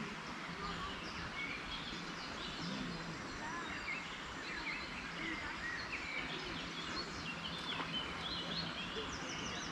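Several small birds singing and chirping in quick short phrases over a steady outdoor background hiss, with a faint low steady hum underneath.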